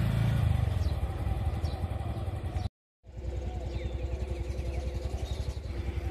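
Small motorcycle engine running on the move, with road rumble. After a brief cut it idles with a steady, rapid putter.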